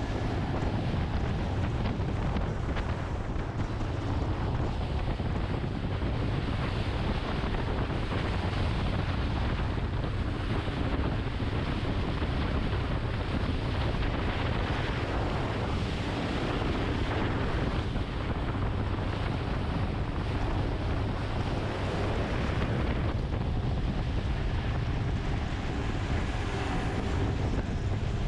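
Boat running across open water: wind buffeting the microphone over a steady low rumble of engine and hull on the water.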